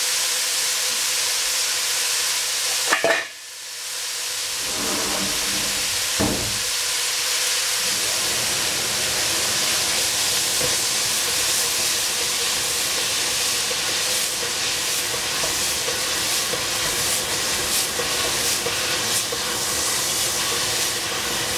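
Food sizzling steadily as it fries in a hot pan. About three seconds in there is a short clatter, after which the sizzling drops away briefly and builds back up. Another small knock follows a few seconds later.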